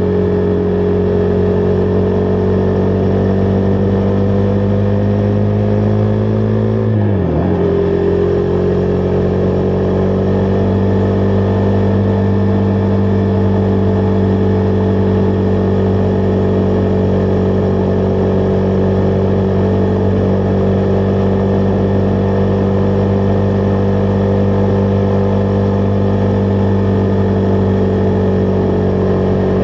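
Husqvarna Vitpilen 401's single-cylinder engine running at a steady cruising speed while riding, the note dipping sharply for a moment about seven seconds in, as when the throttle is shut for a gear change, then settling back to a steady pitch. Wind and road noise run under the engine.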